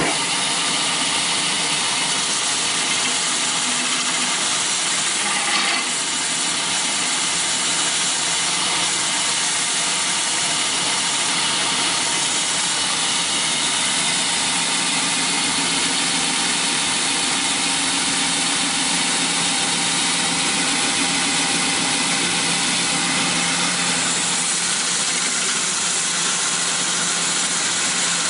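Wood dowel sanding machine running steadily: an even mechanical hum with several steady tones under a broad hiss.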